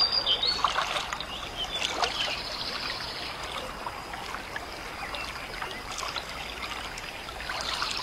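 Water trickling and splashing gently, like a stream or the lapping of a rowboat drifting on water, used as an ambience sound effect.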